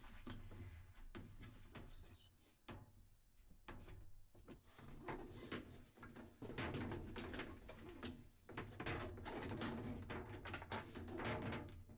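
Handling noise from washing machine hoses being pulled and fed behind a kitchen cabinet: rubbing, scraping and small knocks, faint at first and busier about halfway through.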